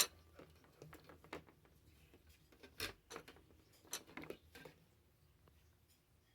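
Scattered short clicks and light knocks of small hard objects being handled, about half a dozen spread over a few seconds, the loudest a sharp click right at the start.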